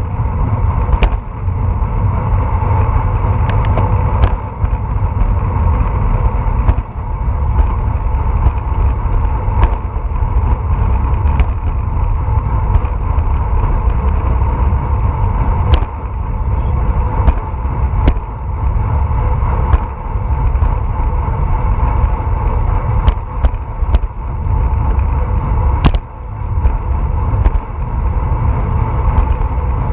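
Steady wind rush and tyre noise while riding a road bicycle, picked up by a bike-mounted action camera's microphone, with scattered sharp clicks and knocks from bumps in the road.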